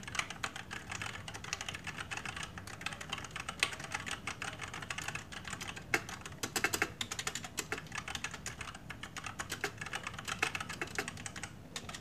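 Fast typing on a Rexus mechanical keyboard with brown switches: a dense, continuous patter of key clacks, with a few louder strikes now and then. Brown switches are tactile with no click, which makes this the quieter keyboard of the pair.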